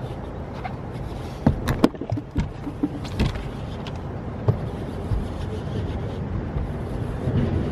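Sharp knocks and clatter of gear on a bass boat's deck as a landing net is grabbed for a hooked fish: a cluster of hits about one and a half to three and a half seconds in, and one more a second later, over a steady low rumble.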